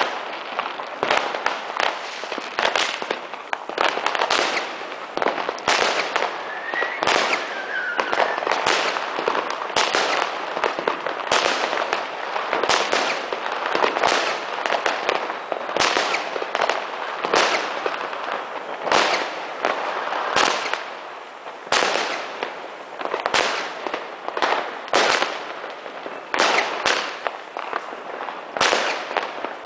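Weco Big Crackles (Thunderbolt) firework crackling without a break: a dense, rapid crackle with louder sharp cracks every second or two.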